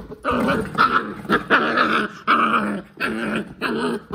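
An eight-week-old Belgian Malinois puppy growling in a quick series of short growls, about two a second.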